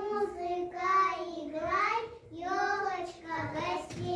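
A young child singing solo, holding and bending each note, with no accompaniment heard.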